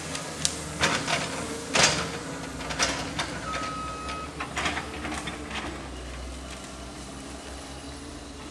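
Excavator working in a stream bed: its engine runs steadily underneath while the bucket makes a string of sharp, irregular knocks and cracks against wood and brush, thinning out after about six seconds.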